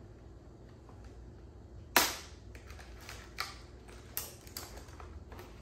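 A single sharp plastic click about two seconds in, then a run of lighter, irregular clicks and knocks as the hard plastic parts of a new RC monster truck are handled.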